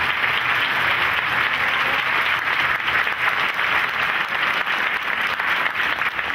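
An audience applauding in a hall: dense, steady clapping from many hands, easing slightly near the end.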